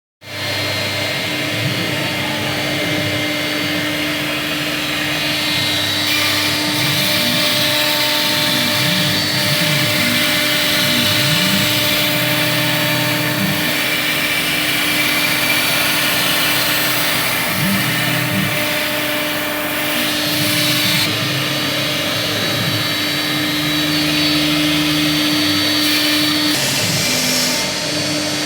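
CNC router spindle running steadily while cutting and engraving foam PVC sheet, with a constant whine. Under it, the axis motors' pitch rises and falls again and again as the gantry moves.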